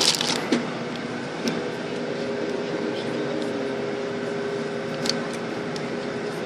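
Tour bus engine running as the bus rolls slowly forward, heard from inside the cabin as a steady hum with a few held tones. A short rustle right at the start and a faint click about five seconds in.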